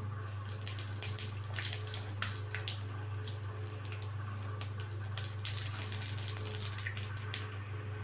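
Seeds crackling and sizzling in hot oil in a kadhai as a spoonful is tipped in, with many sharp pops over a hiss and a steady low hum.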